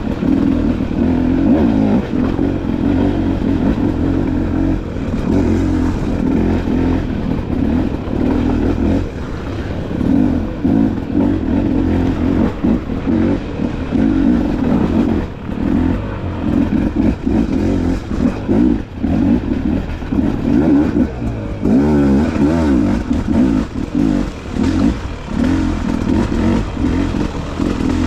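Dirt bike engine running as the bike is ridden, its pitch rising and falling with the throttle, with a quick rev up and down about three quarters of the way through.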